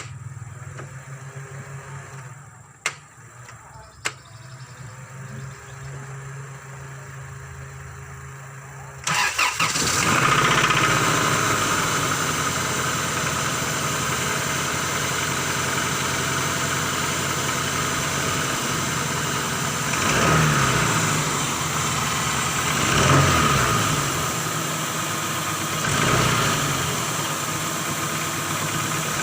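Honda Cielo car engine, not run for two years, starting about nine seconds in after two sharp clicks, then running steadily with three brief revs.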